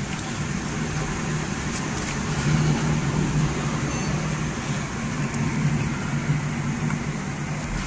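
Downburst winds blowing hard through trees in torrential rain: a steady, dense rush with a deep rumble underneath and a few faint ticks of drops striking.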